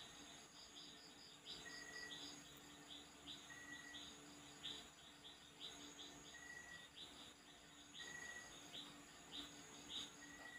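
Faint background chirping of insects and birds: a fast, even pulsing trill with many short high chirps over it, and a short whistle every couple of seconds.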